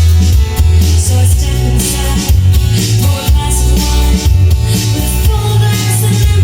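Recorded music played loud through a Sony TA-D505 integrated amplifier and its speakers, with a heavy bass line and a steady beat.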